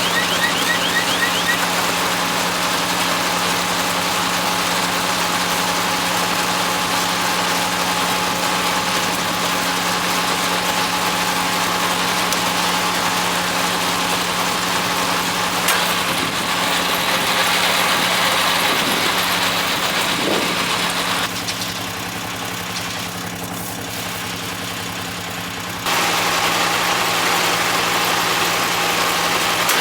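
Kubota L3200 compact diesel tractor running steadily while it drives a mini round hay baler. The sound drops in level for about five seconds two-thirds of the way through, then comes back to full strength.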